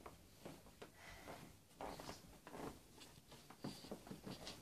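Near silence: room tone with a few faint, soft taps and rustles.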